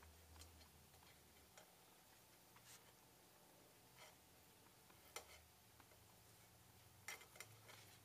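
Near silence, with a few faint light clicks and taps from the metal rhinestone settings as the soldered bow is handled and set down on the table; the clearest click comes a little after five seconds in, and a small cluster about seven seconds in.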